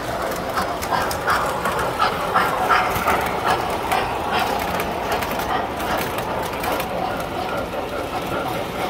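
Tinplate model trains running on metal track: a steady rumble of wheels and motors with a rapid, uneven clicking of wheels over the rails, a little louder between about one and four seconds in.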